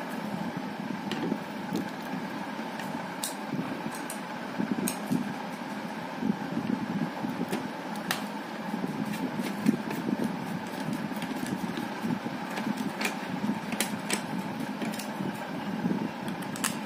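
Scattered light clicks of a screwdriver and small plastic helmet parts being handled, a few seconds apart, over a steady mechanical background hum.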